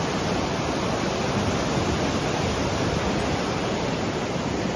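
Steady rushing of a muddy river in flood.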